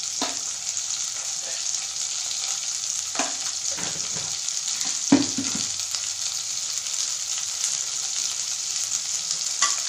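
Drumstick pieces, onion and garlic frying in oil in a pot, a steady sizzling hiss. A few short knocks and scrapes from stirring, the loudest about five seconds in.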